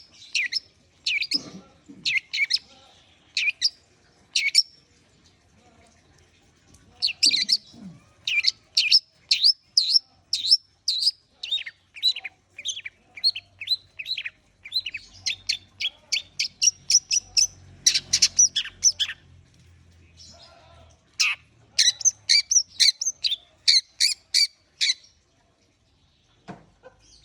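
Long-tailed shrike (cendet) singing: runs of sharp, high, repeated chirping notes, often several a second, broken by short pauses, with a longer gap about twenty seconds in.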